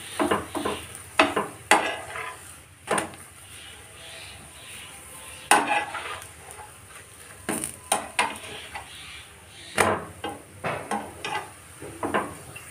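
A steel spoon pressing and scraping a methi paratha on a hot tawa, giving irregular clinks and scrapes against the pan over a steady sizzle of frying.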